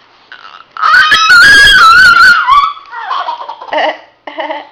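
A loud, high-pitched, wavering cry lasting about a second and a half, starting about a second in: the weird noise Kurtis is being prompted to make. Shorter, choppy cries follow near the end.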